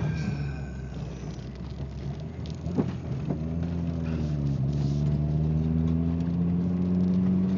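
Ford ZX2's four-cylinder engine running, an engine the owner says misfires badly. Two sharp knocks come about three seconds in, then the revs climb slowly.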